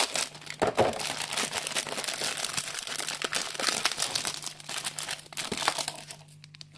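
Plastic packaging crinkling and rustling as a plastic model kit's runner (sprue) is handled and taken out. The crackling is irregular and busy, and it dies down about a second before the end.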